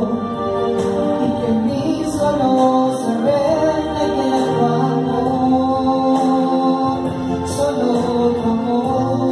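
A woman singing a Catholic worship song into a microphone, accompanied by electronic keyboard playing sustained chords.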